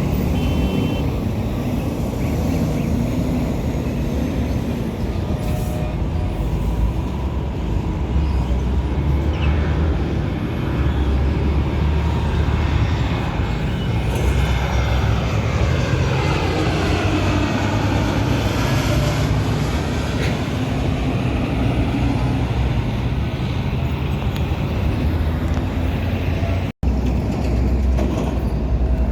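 Jet airliner passing low on landing approach: a loud, steady deep rumble. In the middle a hissing tone sweeps down and then back up as the plane goes over. The sound cuts out for an instant near the end.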